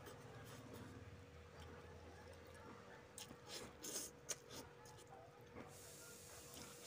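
Close-up eating sounds of a man eating rice and fish with his hand: faint chewing, then a run of sharp wet smacks and clicks as he bites and sucks at a piece of fish held to his mouth, loudest about four seconds in. A faint steady hum runs underneath.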